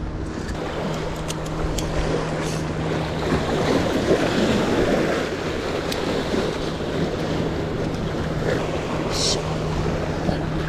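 Sea waves surging and washing among concrete breakwater tetrapods, one surge swelling about four seconds in, with wind buffeting the microphone and a faint steady low hum underneath.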